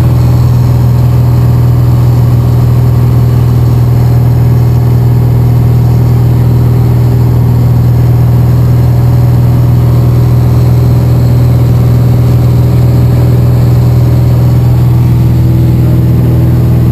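Cessna 170B's six-cylinder piston engine and propeller in steady cruise, heard from inside the cabin as a loud, unchanging drone with a strong low hum.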